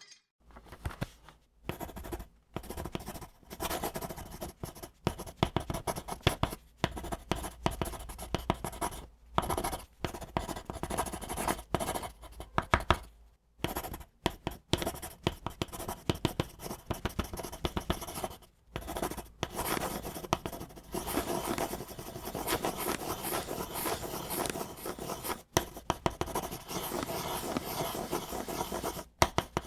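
Pencil writing on paper: quick, irregular scratching strokes in short runs, broken by brief pauses as the pencil lifts.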